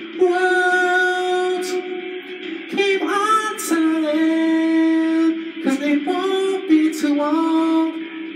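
Male voice singing long held notes into a close microphone, sliding up into some of them, with short sibilant 's' sounds between phrases. A steady backing track runs underneath.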